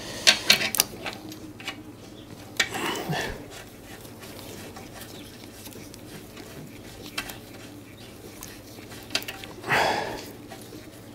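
Small clicks and taps of gloved hands handling an oxygen-sensor wire and its connector on a motorcycle, several clicks in the first second and a few more later, with two short soft rustling swells, one about three seconds in and one near the end.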